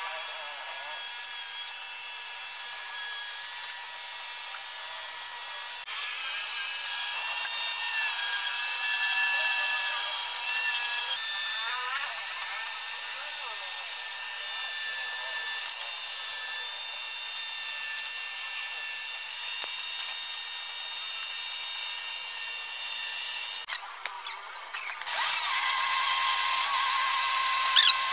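Flexible-shaft rotary tool running at high speed with a steady high whine, sanding and grinding into wood with a drum bit. The whine stops about 24 seconds in, and another power tool starts about a second later.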